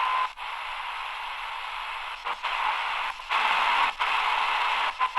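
Shortwave static hissing from the AGPTEK R09 portable radio's speaker as the tuning dial is turned slowly. The hiss cuts out briefly about five times, and a thin steady whistle tone sounds briefly at the start and again at the very end.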